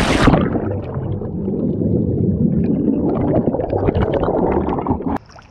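Muffled underwater noise: a dense rumble and gurgle of water moving around a microphone held underwater, which cuts off abruptly near the end.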